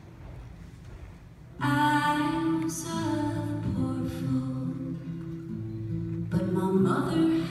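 Live acoustic guitar and a woman's singing voice. A soft guitar passage fades, then strummed chords and a sung line come in loudly about one and a half seconds in, and a new phrase starts near the end.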